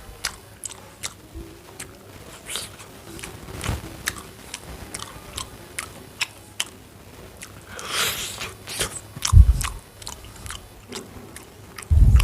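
Close-miked eating: a person chewing and biting food, with quick wet mouth clicks two or three a second. A louder, rougher bite or slurp comes about eight seconds in, and deep thumps sound about nine and a half seconds in and near the end.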